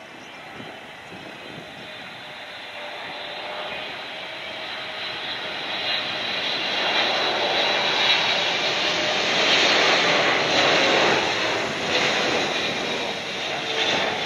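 Boeing 777 jetliner flying in on approach with its landing gear down. The jet engines' rushing noise and faint whine grow steadily louder as it nears, and are loudest about two-thirds of the way through.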